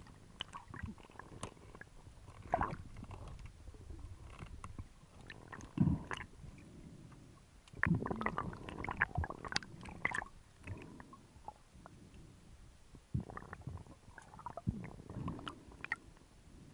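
Muffled underwater sound picked up through an action camera's housing: irregular water sloshing and rumbling, with scattered sharp clicks and knocks, heaviest in a few clusters.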